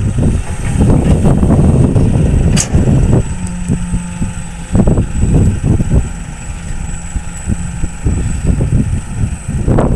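Hitachi hydraulic excavator's diesel engine working under load. For the first three seconds there is a loud rumble as the bucket dumps soil into the steel bed of a dump truck. The excavator then swings back to dig, with a steady hum and scattered knocks.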